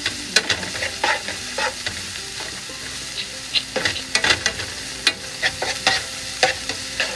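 Garlic and spices sizzling in oil in a frying pan, stirred with a spatula that scrapes and taps against the pan at irregular intervals, most often in the second half.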